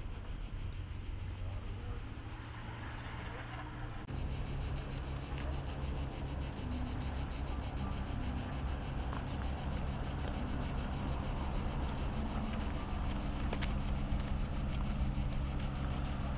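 A chorus of cicadas buzzing steadily and high-pitched, with a fast, even pulse, stepping up in loudness about four seconds in. A low rumble runs underneath.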